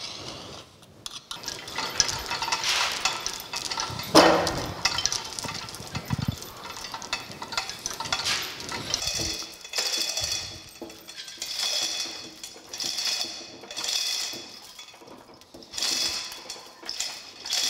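Steel lifting chains and hooks of a gantry-crane hoist clinking and rattling while a heavy planer table hangs from them and is eased down onto the bed. There is a louder metallic clank about four seconds in, and bursts of chain jangling come every second or two in the second half.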